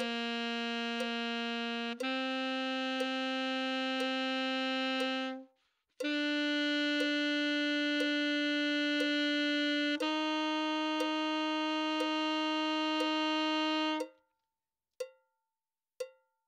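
Wood Stone New Vintage alto saxophone playing a beginner long-tone exercise: written G, A, B and C held as whole notes about four seconds each, rising step by step, with a short breath before the B. A metronome clicks once a second throughout and goes on alone for a couple of clicks after the last note.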